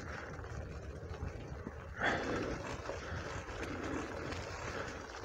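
Merida Silex 400 gravel bike's tyres rolling over dry fallen leaves and forest dirt, a steady rustling crunch with a louder swell about two seconds in.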